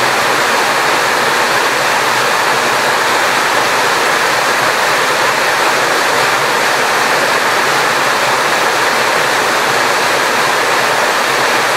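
Steady, loud rush of water, an even hiss that never lets up.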